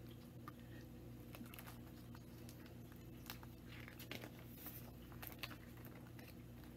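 Faint rustle and a few soft taps of a picture book's pages being turned and pressed flat by hand, over a low steady room hum.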